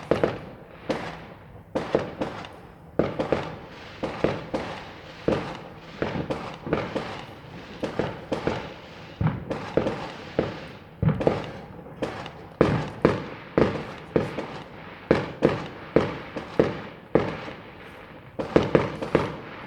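Fireworks going off in quick succession: a run of sharp bangs, roughly one to two a second at irregular intervals, each with a short echoing tail.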